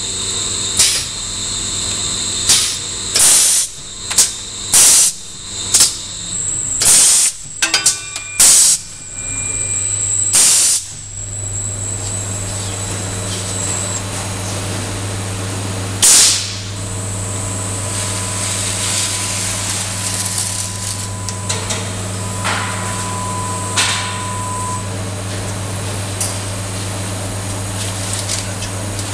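Vittoria 1600 automatic turret winding machine working through its cycle: about a dozen short, sharp air hisses from its pneumatics in the first ten seconds or so, then its drive running with a steady hum as the roll winds, broken by one more hiss midway.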